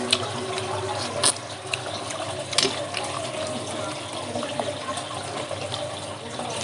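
Steady rush of running water in the background, with three sharp clicks in the first few seconds as mussel shells are handled.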